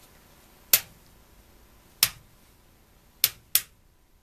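Four sharp clicks from a front-panel switch of a 1947 Sylvania Type 132 tube oscilloscope being worked by hand: one about a second in, one at two seconds, and two close together near the end.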